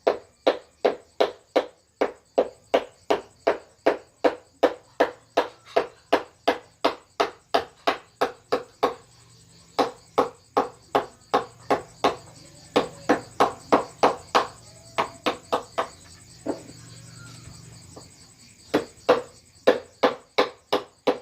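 Mallet striking a carving chisel into wood: a regular run of sharp knocks, about three a second, pausing briefly about nine seconds in and again for a couple of seconds near the end.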